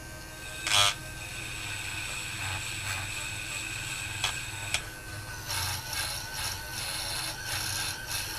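Cordless Dremel rotary tool running with a steady high whine while its brass wire wheel scrubs corrosion off metal. There is a short loud burst about a second in and a couple of sharp clicks, and then rougher, pulsing scrubbing from about halfway.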